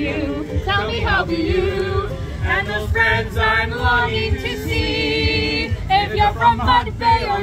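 A small group of men and women singing a song together in harmony, holding a chord for about a second near the five-second mark.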